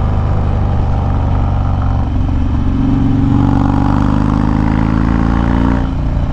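Harley-Davidson Dyna's V-twin running through a Bassani Road Rage 3 exhaust while riding. The engine note climbs under throttle from about halfway through and drops off near the end.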